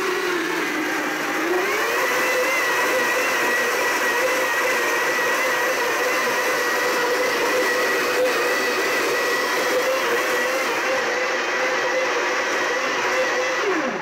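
Countertop blender motor running at high speed, blending a smoothie of spinach, bananas, mango chunks and juice. The whine dips in pitch about a second in, then climbs and holds steady, and winds down and stops at the end.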